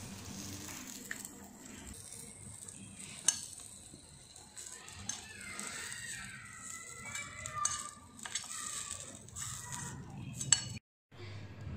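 Hot oil sizzling in a miniature iron pan as fried paneer cubes are scooped out with a small slotted metal spoon, the spoon scraping and clinking against the pan and container, with two sharp clinks louder than the rest, one about three seconds in and one near the end.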